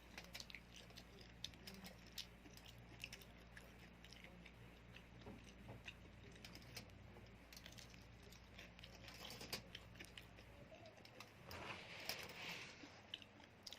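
Cheese sticks being chewed close to the microphone: faint, crisp clicks and crunches throughout, with a louder stretch of crunching about twelve seconds in. A low hum stops a little before that.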